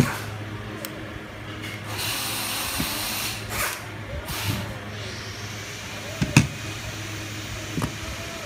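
Pneumatic stapler being worked on with pliers at its valve: metal clicks and clacks, with a hiss of compressed air for about a second. A sharp click about six seconds in is the loudest sound.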